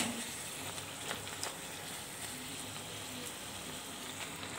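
Puffed methi puri deep-frying in very hot oil in a kadhai, a steady sizzle. A single sharp tap right at the start, with a couple of faint ticks a little over a second in.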